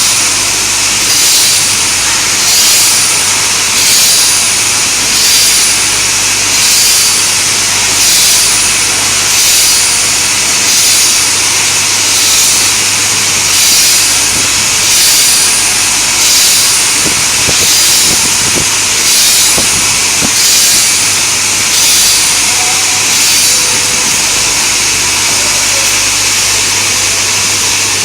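Diamond saw blade segment grinding machine running, its grinding wheel giving a steady high hiss that swells and fades about once every second and a half, over a steady motor hum.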